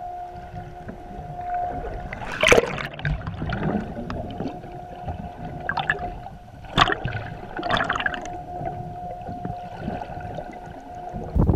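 Underwater sound from a camera just below the surface: a steady hum of boat engines and propellers carried through the water. A few sharp crackles and knocks come about 2.5, 6, 7 and 8 seconds in.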